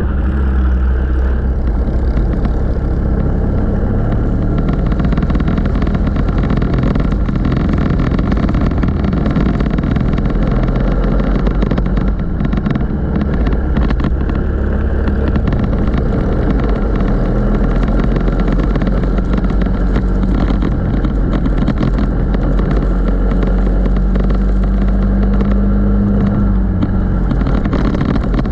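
Racing go-kart engine running hard through a lap, its pitch rising and falling as the kart accelerates and backs off through the corners.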